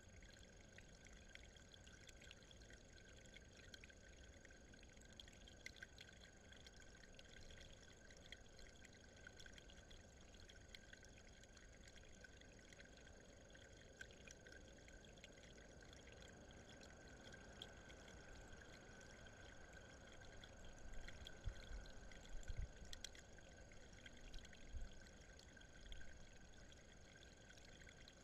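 Near silence: a faint steady hiss with a thin steady whine underneath, a few faint scattered ticks, and a short run of low bumps about three quarters of the way through.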